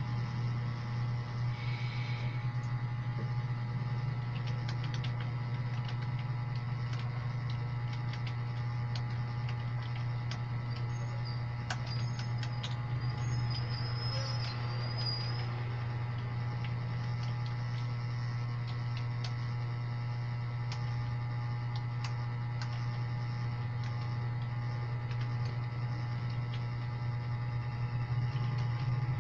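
A steady low hum with faint, scattered clicks over it.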